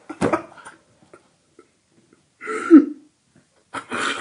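A person coughing and clearing their throat in three short separate bursts, the loudest about two and a half seconds in.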